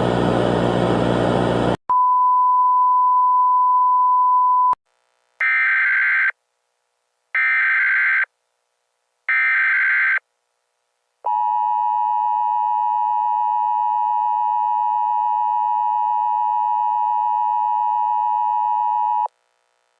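Emergency Alert System tones. A short burst of harsh buzzing static gives way to a steady beep-like tone for about three seconds. Three short screeching data bursts of the EAS header follow, then the long two-tone EAS attention signal for about eight seconds, which announces an emergency alert broadcast.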